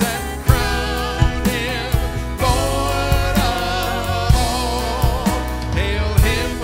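Live contemporary worship band playing: voices singing over keyboard chords and a drum kit keeping a steady beat.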